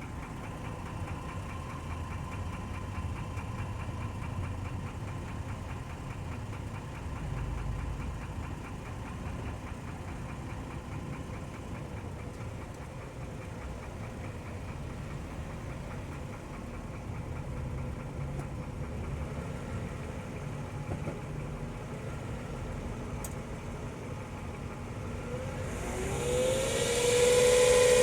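Mercedes-Benz M112 3.2-litre V6 idling with a steady, rapid knocking tick, echoing off a nearby wall. The cause is undiagnosed: it persists despite fresh oil, a recently replaced timing chain tensioner and several oil additives. Near the end a much louder sound with a gliding tone and hiss rises over it.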